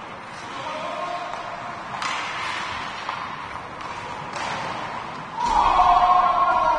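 Ice hockey play in a rink: a few sharp thuds and knocks of the puck, sticks or players against the boards, then a louder held shout near the end.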